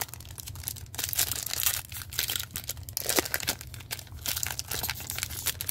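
A foil trading-card pack being crinkled and torn open by hand, with a dense crackle of foil wrapper throughout; the pack is hard to open.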